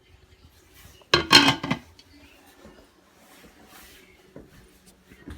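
A brief clatter of kitchen cookware about a second in, then faint handling noise.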